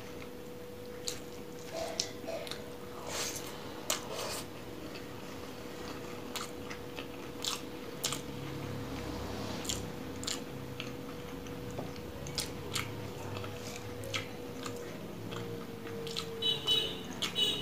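Close-miked chewing and wet mouth clicks of a person eating rice and curry by hand, with soft squishing as fingers mix rice on the plate.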